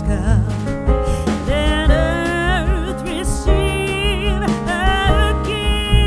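Background music: a song with a sung melody, wavering in pitch, over sustained instruments and a steady beat.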